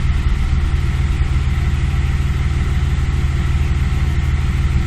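2003 Audi A4's 3.0-litre V6 idling rough, at a steady speed with no revving. The rough idle goes with stored misfire codes on all six cylinders and lean codes.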